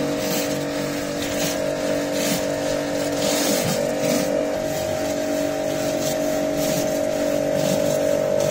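Kärcher K5 Compact pressure washer running with a steady motor-and-pump hum, while water hisses from a rotary surface cleaner attachment scrubbing a wet driveway. The spray hiss swells and fades as the cleaner is swept back and forth.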